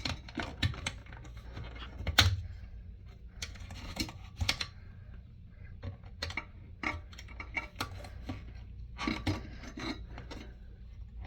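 Plastic toilet-tank parts being handled and fitted by hand: scattered clicks and light knocks, the loudest a sharp knock about two seconds in.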